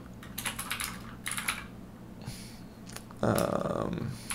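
Typing on a computer keyboard in quick runs of keystrokes. About three seconds in, a short, louder low sound comes in.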